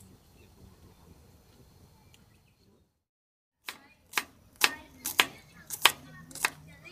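Kitchen knife mincing garlic on a wooden cutting board: about seven sharp knocks, roughly two a second, starting about halfway through after a faint background hush.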